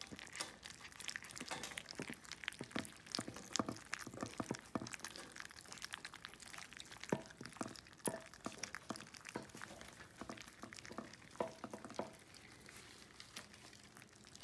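A litter of puppies eating water-softened ground puppy food from a dish: a steady run of irregular wet smacking and lapping clicks.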